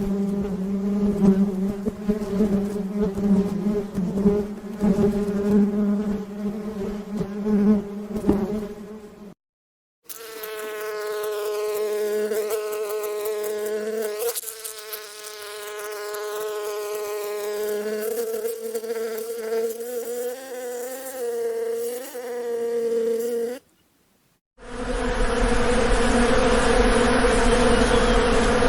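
Bees buzzing in flight: a steady droning hum whose pitch wavers up and down, in three separate stretches broken by two brief silences, the last one rougher and noisier.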